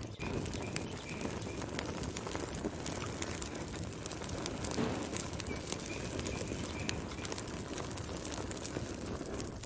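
Wood fire burning: steady crackling with frequent sharp pops and snaps over a low rumble of flames. A faint run of short high chirps sounds twice in the background, near the start and again about halfway through.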